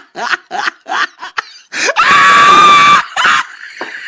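A loud, steady train-horn blast sounds about two seconds in and lasts about a second. It is preceded by a run of short, rapid vocal bursts like laughter.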